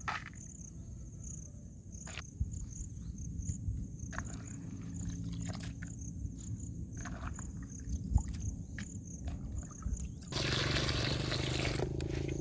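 Hands sloshing and lifting grasshoppers in a plastic bowl of water, with water trickling and dripping and scattered wet clicks. About ten seconds in a louder, steady rush of noise comes in and holds.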